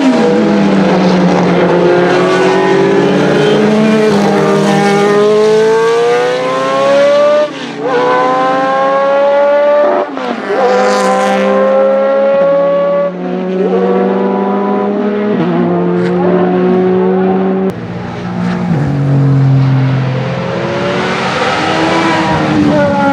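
Ford Cosworth 90° V8 of a historic Formula 1 car accelerating hard through the gears, its pitch climbing in each gear and dropping sharply at each upshift, several times over.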